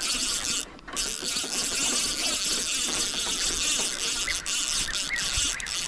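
Spinning reel buzzing steadily under the pull of a hooked giant trevally as the line is fought and reeled in, with a few brief breaks.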